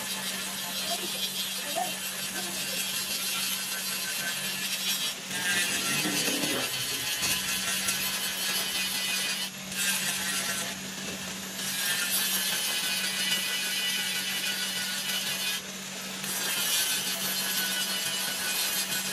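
Electric angle grinder running steadily, its green disc grinding the steel reel blades of a manual reel lawn mower to sharpen them: a harsh metal-grinding hiss over the motor's steady hum, breaking off briefly a few times as the disc lifts from the blade.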